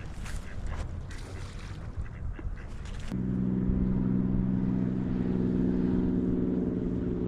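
Mallard ducks quacking for about three seconds. The sound then cuts suddenly to a steady, louder motor hum.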